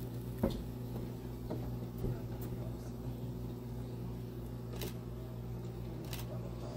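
A steady low mechanical hum, with three brief faint clicks.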